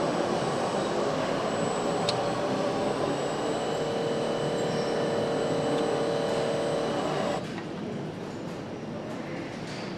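Steady machinery noise on an engine assembly floor, with a sharp click about two seconds in and a steady hum joining about halfway. The hum and most of the din stop suddenly near the end.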